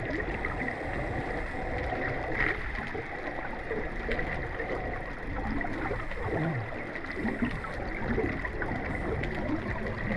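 Water sloshing and gurgling close to the microphone as a snorkeler swims along a spring-fed run, with a faint steady high tone running under it.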